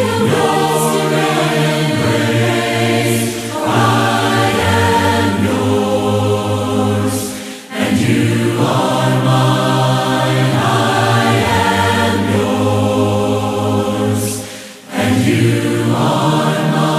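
A cappella vocal group singing slow, sustained chords in close harmony over a deep bass part, with no instruments. The phrases break briefly three times.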